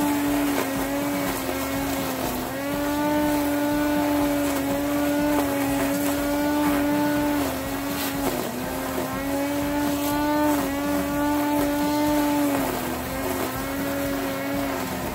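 Hyper Tough corded electric string trimmer running at speed with a steady whine. Its pitch dips briefly a few times as the line cuts into grass.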